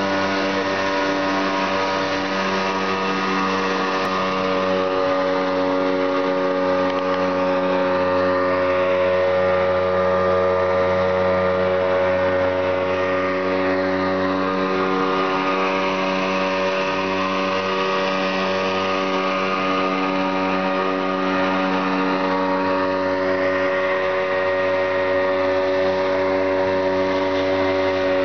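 Outboard motor on a wooden fishing canoe running at a steady cruising speed, a constant droning hum, with the hiss and splash of the hull cutting through rough sea.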